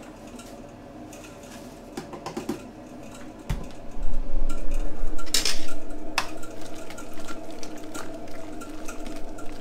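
A long metal spoon stirring boiling wort in a Grainfather's stainless steel kettle, clinking and scraping against the sides. It starts with a knock about three and a half seconds in, after a few light clicks.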